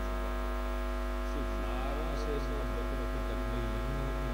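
Steady electrical mains hum and buzz from a public-address sound system, with faint voices underneath.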